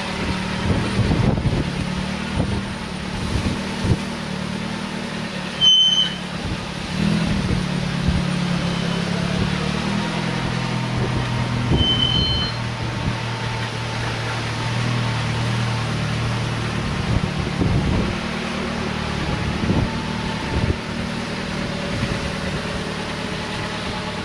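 1931 Swift Crusader's engine running as the car drives off and comes back, its pitch shifting in steps a few times.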